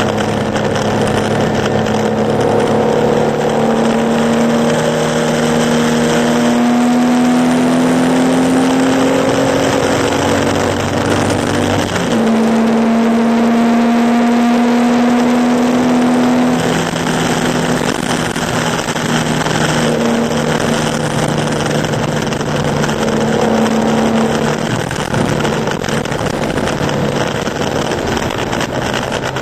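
Air-cooled flat-six of a Porsche 911 2.0 racing on a soaked track. The engine note climbs slowly under load, drops sharply about twelve seconds in as the revs fall, then climbs and holds again, all under a constant hiss of water spray thrown up by the tyres.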